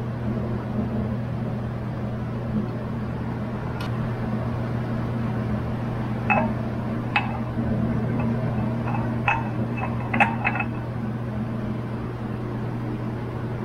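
A steady low electrical hum, with a few light metallic clinks and ticks between about four and eleven seconds in as an oil filter is handled and spun onto the oil cooler sandwich plate.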